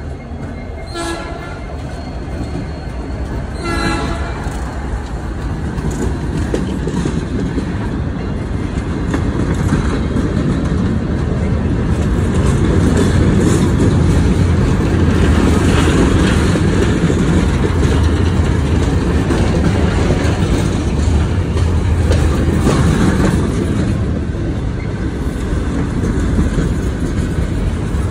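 A Norfolk Southern freight train passing close by: six-axle diesel locomotives rumbling past, then a string of gondola cars rolling by with the noise of steel wheels on the rails, growing louder after about ten seconds. Two short horn toots sound in the first four seconds.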